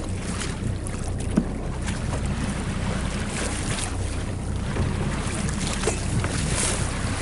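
Motorboat engine running steadily, with wind buffeting the microphone and water rushing along the hull.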